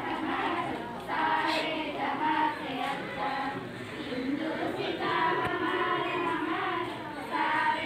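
A group of schoolchildren singing a song together in chorus, with held notes.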